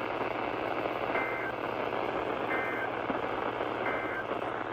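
Three short bursts of NOAA Weather Radio SAME digital data tones, a warbling two-tone screech about 0.3 s long each and roughly a second and a half apart, heard over steady radio static from a weakly received station; bursts this short match the end-of-message code that closes an emergency alert.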